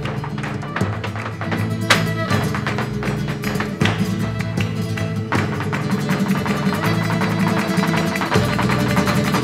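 Live flamenco farruca: guitar playing under dense, rapid percussive strikes from the dancer's footwork and hand-clapping (palmas), which grow thicker about halfway through.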